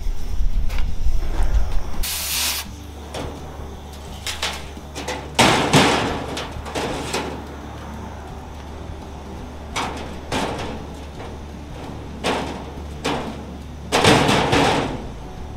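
Oxy-acetylene cutting torch hissing as it cuts through steel square tubing, with several louder rushes of noise. Wind rumbles heavily on the microphone for the first couple of seconds.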